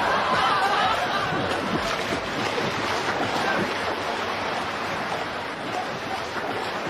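Pool water splashing and churning as a man swims through it, a steady rush of splashing noise.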